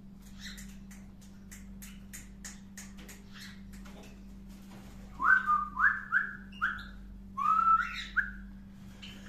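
Loud whistling in short rising notes, four in a row about five seconds in and three more near the end, over faint, rapid, high chirps of small pet birds. A steady low hum runs underneath.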